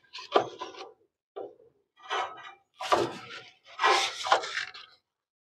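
About five rough scraping strokes, each under a second, with short gaps between them.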